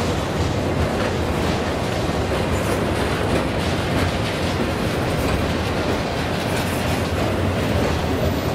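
Long CSX freight train rolling slowly past at a steady level, its steel wheels clicking and clacking over a brand-new track crossing.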